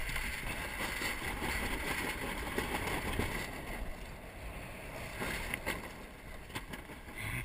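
Water rushing and splashing along the hull of a 470 sailing dinghy under way, with wind noise on the microphone. A couple of light knocks come about five and a half seconds in.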